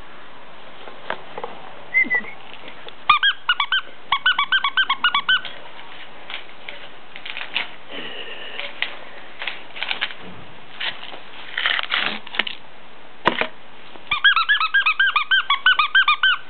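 Squeaky toy squeaking in two quick runs of about five squeaks a second, the first about three seconds in and the second near the end, with scattered rustles and clicks between.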